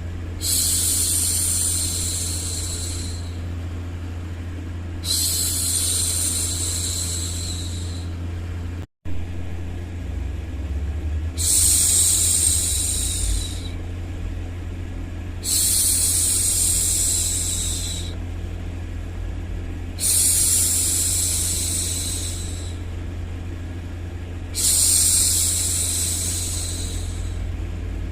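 A woman's long 'shhh' hushing sounds, six of them, each lasting two to three seconds and repeating every four to five seconds, over a steady low white-noise hum. The sound cuts out for an instant about nine seconds in.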